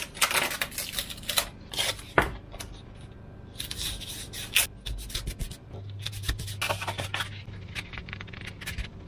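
Cut Depron foam pieces handled and slid over a wooden tabletop: irregular rubbing, scraping and light knocks. A longer rasping stretch about four seconds in fits masking tape being pulled off its roll.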